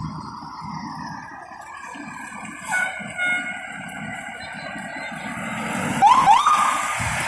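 Fire engine's diesel engine running as it pulls through the intersection, with two short high tones about three seconds in and two quick rising siren whoops near the end.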